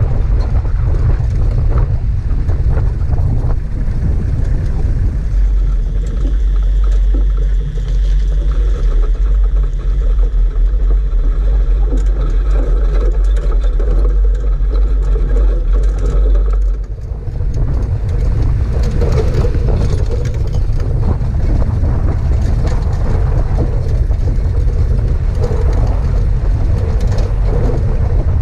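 4WD vehicle driving over a rough dirt track: a loud, continuous low rumble of engine and tyres. From about five seconds in the engine note runs steadier with a deep hum. Around seventeen seconds it breaks off with a brief dip, and a rougher rumble follows.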